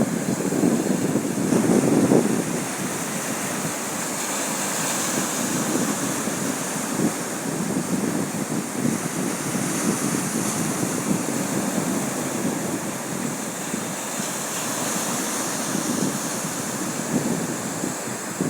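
Sea waves washing onto a beach, with wind blowing across the microphone. A louder wave surges in the first couple of seconds, then the wash holds fairly steady with gentle swells.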